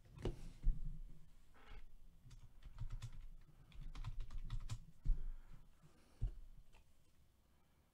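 Scattered light clicks and taps in irregular clusters, like hands typing or handling hard plastic at a desk, dying away near the end.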